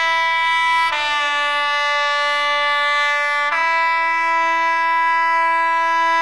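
Class 67 diesel locomotive's horn sounding one long, loud blast. It starts on the high note, drops to a lower note about a second in and goes back to the high note about three and a half seconds in.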